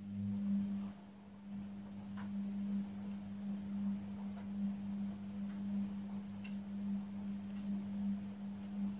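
A steady low electric hum, pulsing slightly, that starts abruptly and cuts off suddenly near the end, with a few faint papery ticks of book pages being turned.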